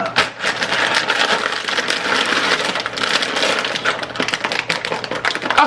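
Plastic instant-noodle packet crinkling and crackling without a break as it is twisted and pulled hard in an attempt to tear it open.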